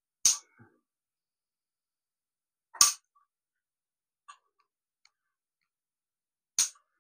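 Sharp clicks and knocks from a camera tripod's parts as it is handled and adjusted: three loud clicks a few seconds apart, with a few faint ticks between them.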